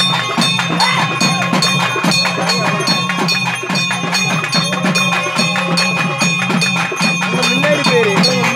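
Loud temple festival drum music: fast, steady drumming with high ringing metallic tones held over it, and crowd voices.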